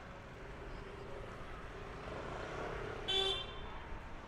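Busy street noise with a short vehicle horn toot about three seconds in, the loudest sound here.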